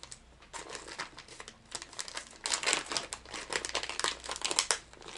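Clear plastic lure bag crinkling as it is handled and opened, in quick irregular crackles that grow busier about halfway through.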